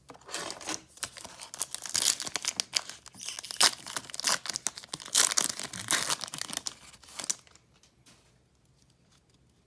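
A baseball card pack wrapper being torn open and crinkled: a dense run of tearing and crackling that lasts about seven seconds, then stops, leaving a few faint clicks.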